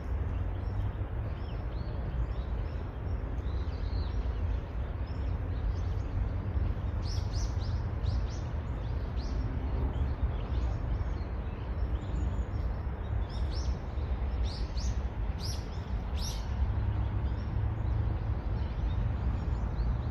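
Small birds chirping in short, quick high calls, busiest in two bouts about a third of the way in and again past the middle, over a steady low rumble.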